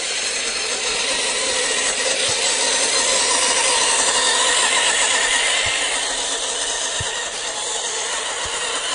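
A 1/12-scale Roc Hobby Type 82 Kübelwagen RC car driving over gritty concrete: its motor and geared drivetrain run steadily, and its tyres roll and grind over loose grit. The noise grows a little louder around the middle.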